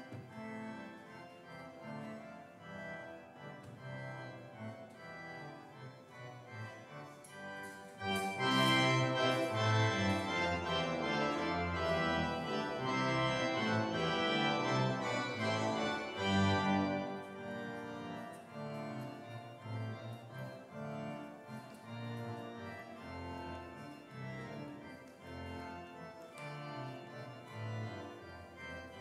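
Church organ playing a closing voluntary in sustained chords, growing louder and fuller about eight seconds in, then dropping back softer about seventeen seconds in.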